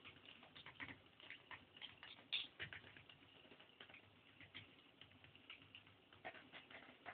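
Near silence, broken by faint, irregular clicks and taps on a parquet floor, with a slightly firmer tap a little over two seconds in: a dog moving about and a toy ball nudged on the wood.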